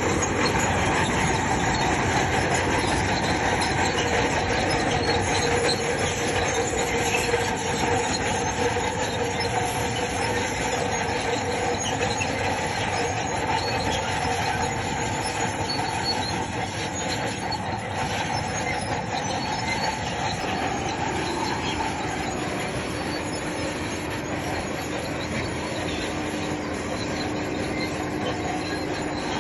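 Crawler bulldozer working, its engine running under a constant squeal and clatter from the steel tracks; the squealing tones shift pitch about two-thirds of the way through.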